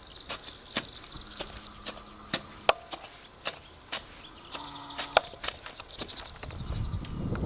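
Long-handled digging tool chopping into dry, sandy garden soil: repeated sharp knocks, a couple a second and unevenly spaced, with birds trilling high in the background.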